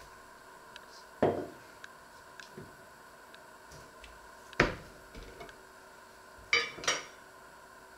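Handling a glass pickle jar on a wooden chopping board: separate knocks and clinks as the jar is set down and its lid is taken off and put down. There is one knock about a second in, the loudest about halfway, and a quick pair near the end.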